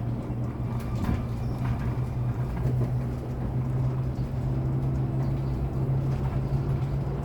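Cabin of a Hyundai Elec City Town electric bus under way: a steady low hum with road noise, and a few short rattles or clicks.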